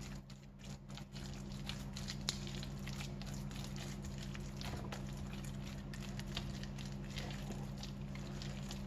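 Pureed prawn mousse and chopped raw prawn being folded together in a bowl: soft, irregular wet squelching and light scraping, with one sharper tick about two seconds in, over a steady low hum.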